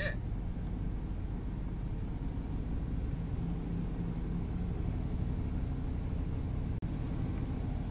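Steady rumble and hiss of a vehicle driving on a rain-soaked highway in heavy rain, heard from inside the cab: tyre noise and rain, with a brief click-like dropout near the end.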